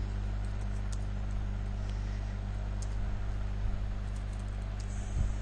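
Computer keyboard keys clicking faintly and irregularly as commands are typed, over a steady low electrical hum.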